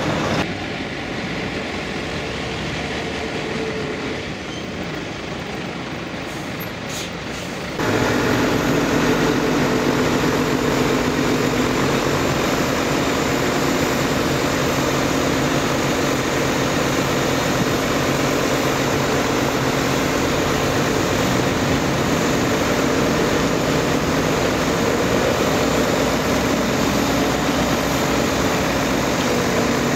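Heavy diesel engines of an asphalt paver and the tipper truck feeding it, running steadily during asphalt paving. About eight seconds in the sound changes abruptly and gets louder.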